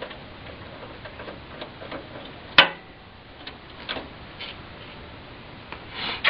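Scattered light clicks and taps from parts being handled in an open desktop computer case while an expansion card is taken out, with one sharp click about two and a half seconds in.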